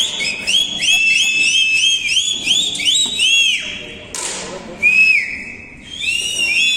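High whistling: a quick run of short notes, each rising and falling in pitch, tumbling over one another several times a second. Near the end it turns to a few long steady whistled tones.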